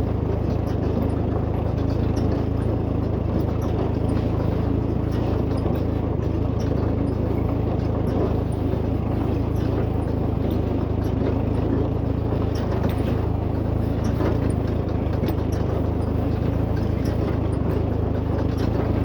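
John Deere 116W baler running, a steady low mechanical drone with a dense rattle and scattered light ticks over it.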